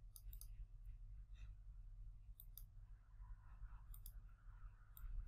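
Faint computer mouse clicks, several scattered single and double clicks, over a low steady hum.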